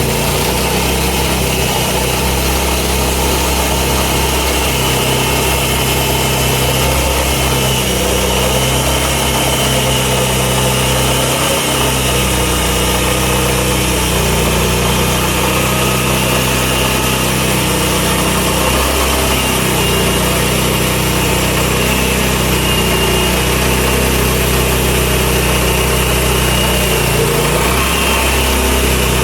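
Petrol engine of a portable bandsaw sawmill running steadily and loudly through the skim cut on a red maple log, its pitch shifting a little as the load changes.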